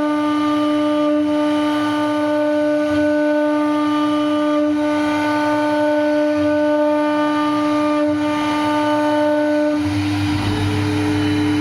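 CNC router spindle whining at a steady high pitch as it carves wood. About ten seconds in the whine thins and a low rumble joins.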